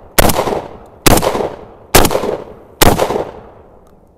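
Emperor Arms Mogul Ultra gas-operated semi-automatic 12-gauge shotgun firing 00 buckshot: four shots in quick succession, a little under a second apart, each with a short echo dying away. The gun cycles every shell without a stoppage.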